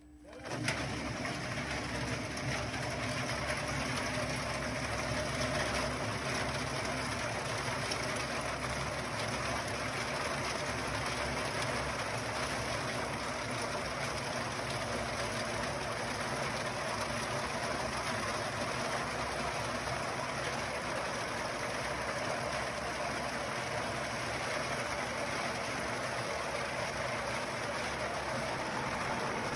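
Kadıoğlu 180ED walnut hulling machine running, a load of green walnuts churning and knocking in its spinning brush-lined drum under water spray. A steady, dense mechanical noise that starts abruptly about half a second in.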